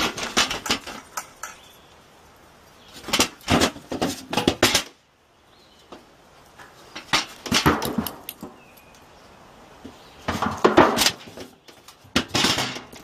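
A young goat's hooves clanking and clattering on metal trash-can lids as it hops from can to can, in four bursts of quick knocks with short pauses between.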